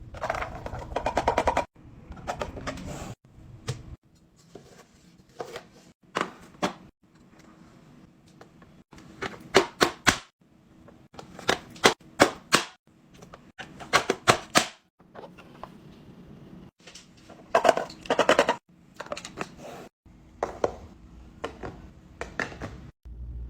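Restocking a fridge: containers, jars and lids tapping, clinking and knocking as they are handled and set down. The sounds come in quick clusters of clicks, broken by abrupt cuts every few seconds.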